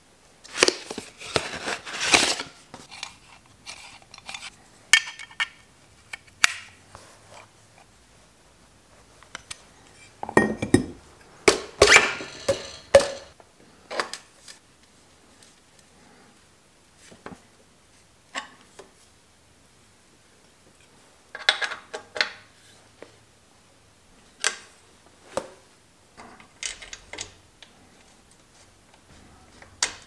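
Hand tools and bicycle parts being handled: scattered metallic clicks, clinks and short scrapes of hex keys and components, in irregular bursts with quiet gaps between them.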